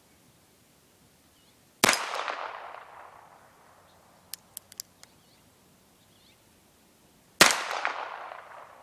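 H&R .22 revolver firing two shots of Remington Thunderbolt .22 LR, about five and a half seconds apart, each report echoing away over a second or so. A few faint clicks come between the shots.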